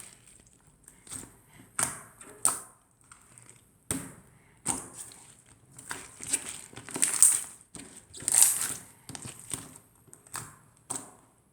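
Chewy clear slime being squeezed and stretched by hand: irregular sticky pops and crackles, about a dozen, the loudest around seven to nine seconds in.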